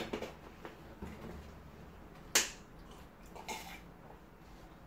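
Quiet eating and drinking sounds at a table, with one sharp click about halfway through and a smaller burst of clicks a second later.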